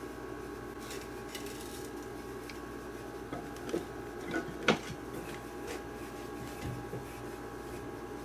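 A few light knocks and clicks as a lathe's metal tool rest is positioned and the maple bowl blank handled, the sharpest about halfway through, over a steady hum in the shop.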